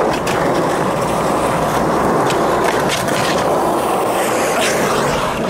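Skateboard wheels rolling fast over rough asphalt: a steady, loud rolling rumble, with a few short clicks.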